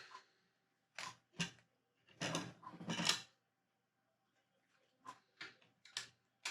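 Lego plastic bricks being handled: a couple of sharp clicks about a second in, a longer clatter of pieces around two to three seconds in, then lighter quick clicks near the end.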